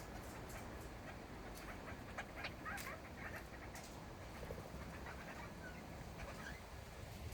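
Small parrots calling softly, short scattered chirps over a faint background, with many brief clicks throughout.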